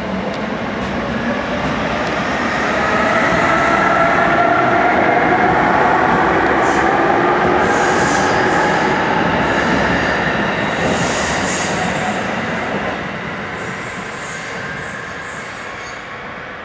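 JR Kyushu 811 series electric train pulling away: its motor whine rises in pitch as it gathers speed. The train grows louder, then fades as the last cars pass, with high wheel squeals and clicks on the rails in the second half.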